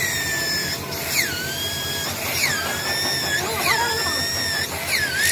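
Metal-cutting tool squealing against a cylinder head as it machines: a high-pitched squeal that swoops down in pitch and then holds, repeating about every second and a bit.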